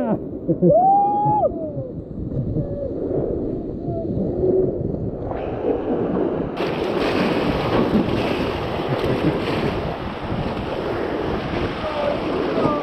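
Rushing water of river rapids with wind buffeting the microphone, growing fuller about six seconds in. A short shout sounds about a second in.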